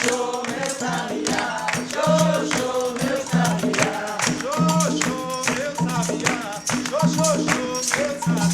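Coco de roda music: a voice singing short rising-and-falling phrases over steady hand percussion with a jingling, tambourine-like beat and a low repeating drum-like tone.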